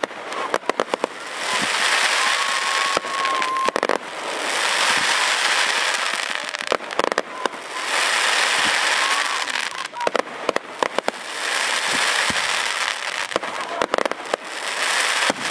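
Fireworks going off in a steady cycle: a quick cluster of sharp pops, then a couple of seconds of hissing crackle, repeating about every three seconds.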